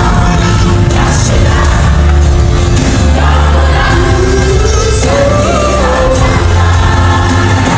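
Loud worship music: a band with heavy bass, with voices singing over it. About halfway through, one voice glides upward in pitch.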